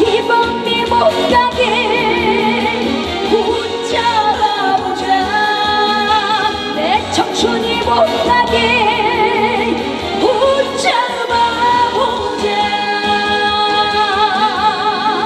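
Live band playing a trot song, a lead melody with wide vibrato over full, steady accompaniment, with a couple of quick upward glides.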